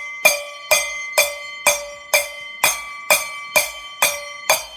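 A bowl struck repeatedly with a spoon, about two strikes a second. Each strike rings out with a clear bell-like tone that fades before the next.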